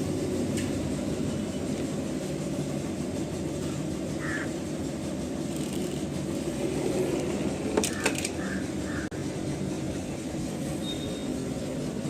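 Steady low mechanical drone, with a few sharp clicks, the loudest about eight seconds in.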